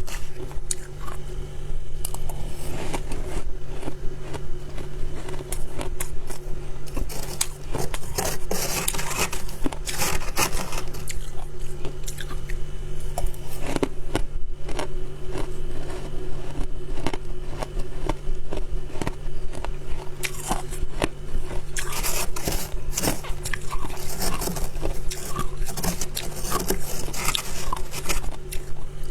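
Close-miked biting and chewing of soft white ice, a dense run of crisp crunches and crackles.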